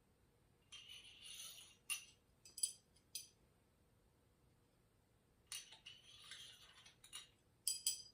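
Steel pushrods being slid down into place in the engine: two spells of light metal-on-metal sliding, each followed by a few sharp clinks as a rod settles.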